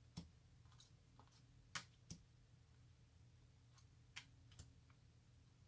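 Faint, irregular clicks of tarot cards being handled and flipped through, about five in all, over a low steady hum.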